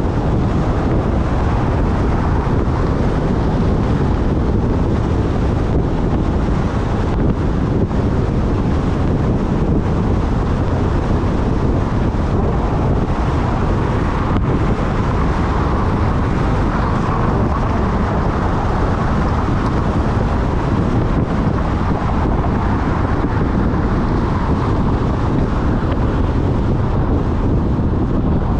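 Steady rush of wind and tyre noise from a car driving at road speed, with wind buffeting the microphone.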